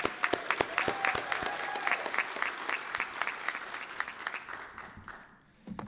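Audience applauding, with individual sharp claps standing out over the general clapping, dying away about five seconds in.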